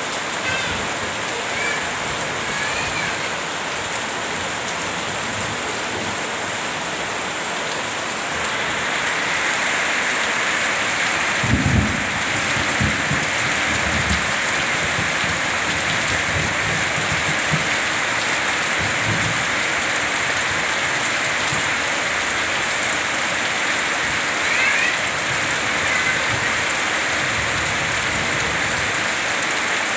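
Heavy rain falling steadily on the ground and the roof edge, with water running off the eaves; the downpour grows a little heavier about eight seconds in. About twelve seconds in, thunder rumbles low, with further rumbles over the next several seconds.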